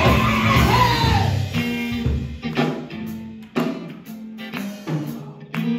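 Live church band music with electric bass, electric guitar and drums. About two seconds in, the full band drops back to a sparse groove of held bass notes and regular drum hits.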